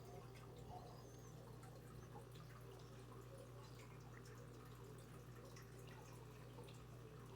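Near silence: a steady low hum with faint, scattered small clicks.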